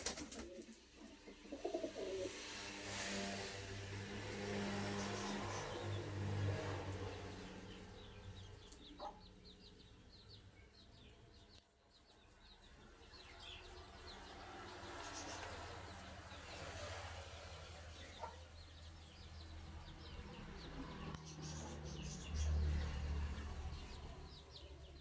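A flock of Indian fantail pigeons cooing low in a pen, the cooing swelling twice, loudest near the end. There is a sharp flap or knock at the very start and scattered high chirps throughout.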